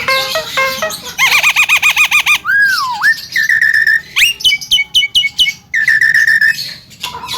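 Javan myna whistling and chattering. It gives a rapid warbling trill, a dipping whistle, held whistled notes and a quick run of short rising notes.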